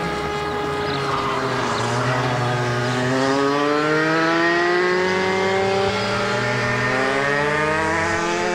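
Radio-controlled model plane's motor and propeller running in flight. Its pitch dips at the start, then climbs steadily for a few seconds and rises again later as the plane manoeuvres, over a steady low hum.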